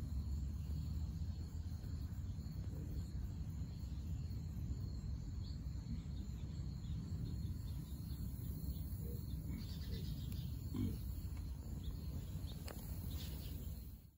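Mini pigs grunting low and continuously, a dense rumbling that cuts off suddenly at the end.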